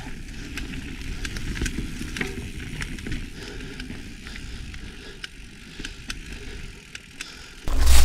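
Mountain bike riding fast down a dirt singletrack over dry leaves: tyre rumble with scattered sharp clicks and rattles from the bike. Near the end it cuts abruptly to a much louder low rumble.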